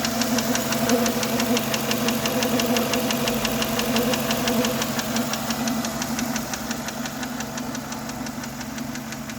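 Renault Megane II's K4M 1.6 16-valve petrol engine idling warm with a rapid, even ticking knock from the top of the engine. The owner takes it for a hydraulic lifter near the fourth coil, on the intake or exhaust camshaft, even though the lifters are new.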